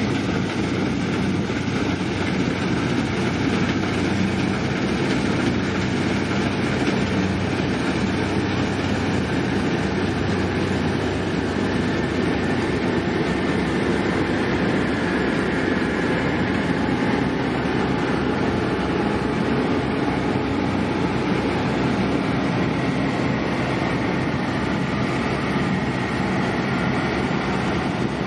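New Holland combine harvester running steadily as it cuts ripe wheat: engine and harvesting machinery making one continuous mechanical noise.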